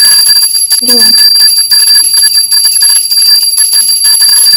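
A bell ringing without a break in the background, a steady high ringing with a fast tremble to it.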